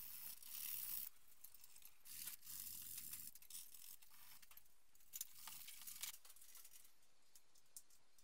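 Faint hand-sanding strokes of sandpaper rubbing over dried body filler on a car panel, clearest in the first second and again about two to three seconds in.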